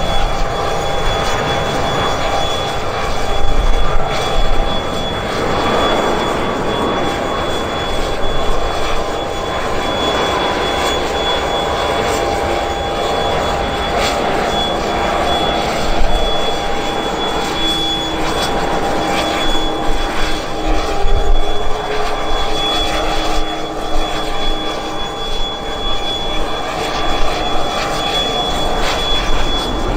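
Aircraft turbine engines running steadily, a loud roar with a high steady whine over it.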